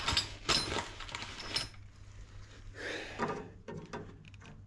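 Handling noises of scraping and rustling with light knocks, as a hand works at the pipework inside a fan convector's metal casing. They come in the first second and a half and again about three seconds in.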